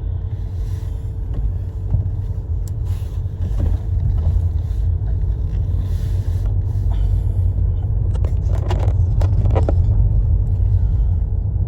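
Car engine idling, heard from inside the cabin as a steady low rumble with a faint steady hum above it. A few brief noises come about eight to ten seconds in.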